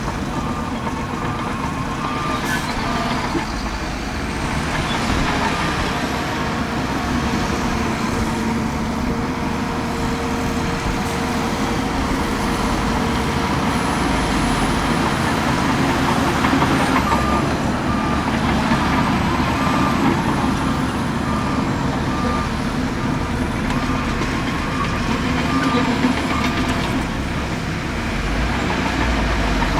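Heavy diesel earthmoving machines (dump trucks, wheel loader, bulldozer) running under load. A reversing alarm gives steady evenly spaced beeps at the start, and again for about ten seconds after the middle.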